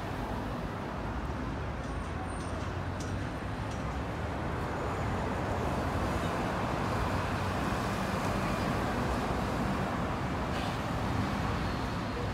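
Steady road traffic noise from cars on a busy city avenue, swelling a little around the middle.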